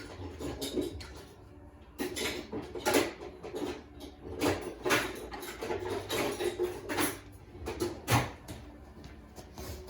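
A screwdriver scraping and clinking against steel while prying at the snap ring that holds a worn wheel bearing in its hub. There are irregular sharp metal clinks every second or so between scraping.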